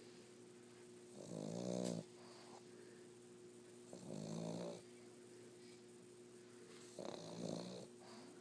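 Pug snoring in its sleep: three snores about three seconds apart, each lasting just under a second.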